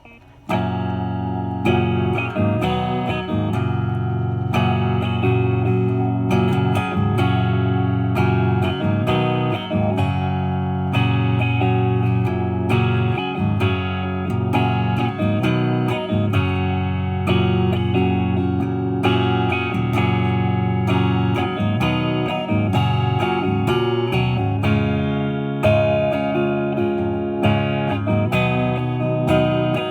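Epiphone 1959 Les Paul Standard reissue electric guitar played clean through an amplifier, with the selector in the middle position so both humbuckers are on and all knobs fully up. Chords are strummed and notes picked, starting about half a second in.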